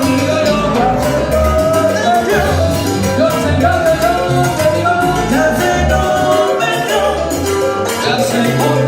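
Live salsa band playing: a bass line and steady percussion under a moving melody line.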